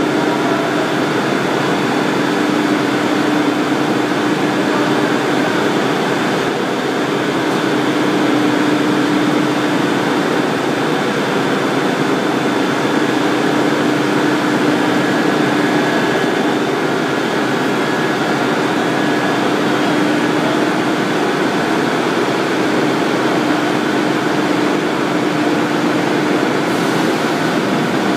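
GUIX-745 Banbury internal rubber mixer running: a loud, steady mechanical drone with a constant hum through it.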